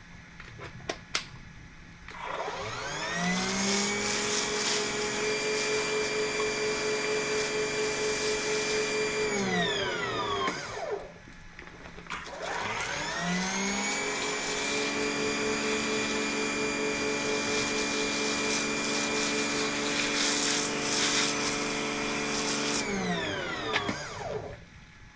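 EGO 56-volt battery pressure washer's motor and pump running twice. Each time it spins up with a rising whine, holds a steady pitch, then winds down and stops. The first run lasts about eight seconds and the second about ten.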